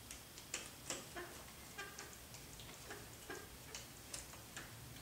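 Irregular light clicks and ticks, a few a second, from a small screwdriver and small parts handled against a model helicopter's frame and servo horns during assembly.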